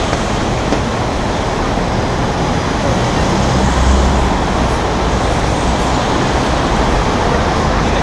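Road traffic at a busy city crossing: cars, a taxi and a bus passing, with a steady rumble of engines and tyres that swells a little about halfway through.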